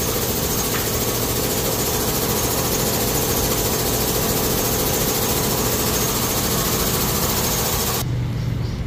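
Steady mechanical running noise, a low hum under a hiss, with the high hiss cutting off suddenly near the end while the hum goes on.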